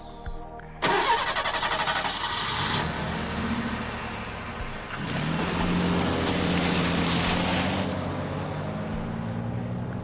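Car engine starting about a second in, cranking and catching, then running steadily; around halfway the engine note picks up and rises before easing off again.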